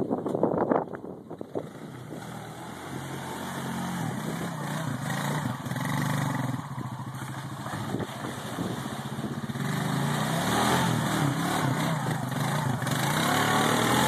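Honda Rancher 350 ATV's single-cylinder engine revving under load as it climbs a steep muddy bank, its pitch rising and falling with the throttle. It grows steadily louder as the ATV comes up toward the listener.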